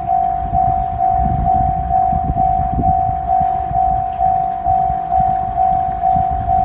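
Japanese level-crossing warning bell ringing "kan-kan", one high tone struck about twice a second, each stroke fading, over a low rumble.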